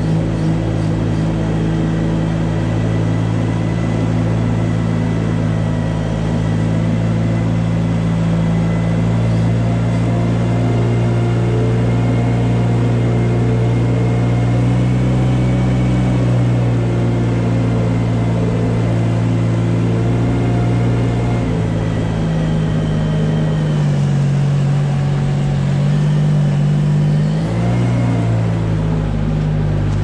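Compact articulated farm loader's engine running steadily under load while pushing a manure scraper blade. Its pitch shifts up and down a few times in the last third.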